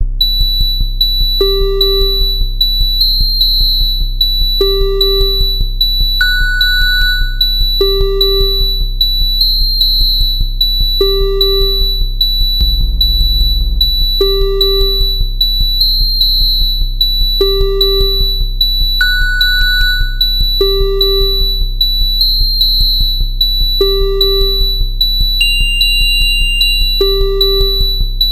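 Synthesized emergency-alert-style alarm: steady high-pitched tones held over a low hum, with a short pitched note repeating about every three seconds over a regular ticking beat.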